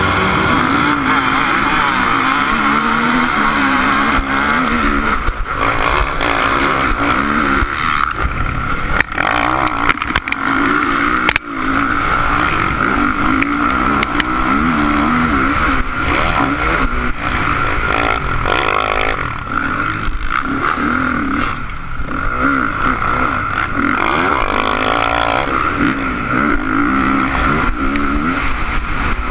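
Honda CRF450 motocross bike's single-cylinder four-stroke engine, heard through a helmet camera, revving up and down hard as it races, with a few sharp knocks about a third of the way in.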